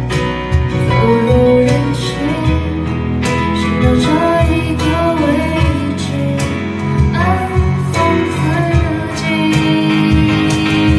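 Live folk-pop band playing: strummed acoustic guitar with violin, keyboard and bass under a woman's sung melody.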